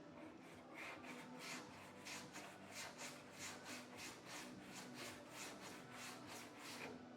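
Sandpaper rubbing back and forth over a filler-coated car body panel in quick, even strokes, about three a second. The strokes start just under a second in and stop just before the end.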